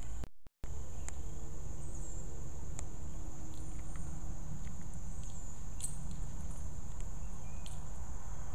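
Steady high-pitched chorus of insects such as crickets, over a constant low rumble on the microphone, with scattered faint clicks. The sound cuts out briefly just after the start.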